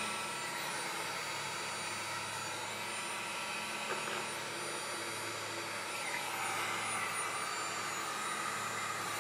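Electric heat gun blowing steadily, a fan-driven hiss with a low hum, aimed at a small two-stroke RC engine to warm it up.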